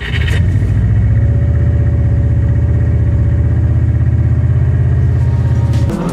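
Subaru WRX STI engine running at a steady speed, a loud, deep, even throb. It cuts off just before the end.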